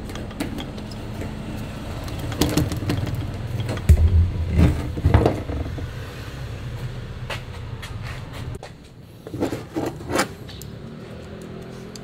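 Handling noise from fitting a dust-shroud hose onto a cordless angle grinder: plastic clicks, scrapes and knocks as it is handled and set down on a wooden workbench, with a cluster of knocks near the end, over a low steady hum.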